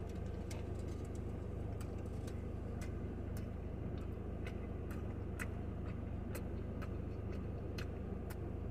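Burrito being chewed: irregular small wet mouth clicks a few times a second over a steady low hum.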